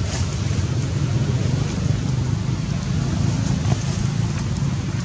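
Steady low rumble of outdoor background noise, even and unbroken, with no distinct events standing out.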